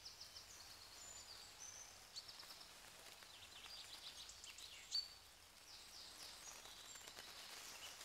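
Faint forest ambience: small birds calling in short, high chirps and trills, one a little louder about five seconds in, over a soft hiss.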